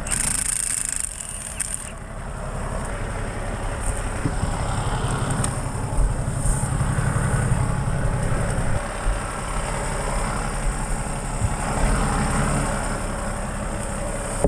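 Off-road vehicle's engine idling steadily. Near the start a cordless impact wrench on the wheel nuts gives a short high-pitched whir that stops about two seconds in.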